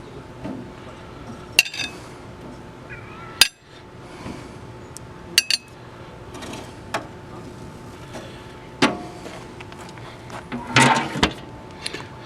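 Sharp metallic clinks and knocks of utensils against a charcoal grill, about eight separate strikes with a louder cluster near the end.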